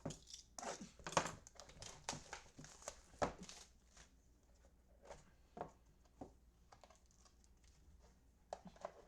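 Trading cards and their packaging being handled: crinkling and rustling, dense for the first few seconds, then thinning to a few scattered clicks.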